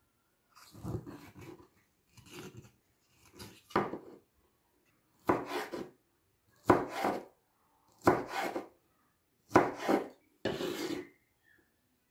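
A kitchen knife cutting through an apricot onto a wooden cutting board: about eight short scraping cuts, each lasting around half a second.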